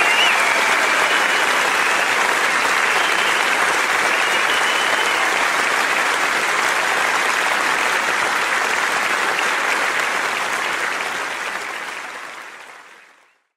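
Concert audience applauding, a dense, steady clapping that fades away to silence near the end. A last held note from the music dies away in the first moment.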